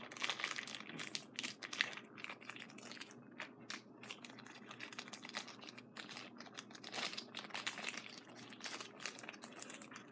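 Plastic packaging of a NumNoms toy pack crinkling and rustling as it is handled and opened, in many quick, irregular crackles.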